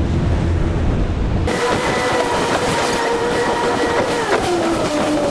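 Twin 300 hp outboard motors driving a boat at speed, a steady whine over rushing wind and water. A heavy low rumble cuts off about one and a half seconds in. The whine drops slightly in pitch about four seconds in.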